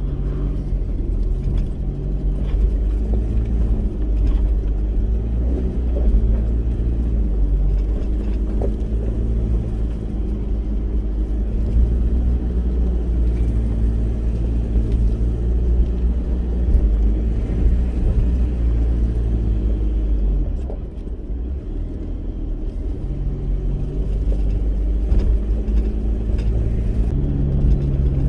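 Four-wheel-drive vehicle driving on a rough dirt track: a steady low rumble with the engine's hum rising and falling as the revs change, easing briefly about two-thirds of the way through.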